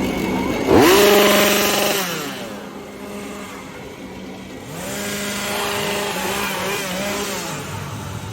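Chainsaw engine idling and being revved in repeated bursts, its pitch rising and falling; the loudest rev comes about a second in, and the revving picks up again in the second half.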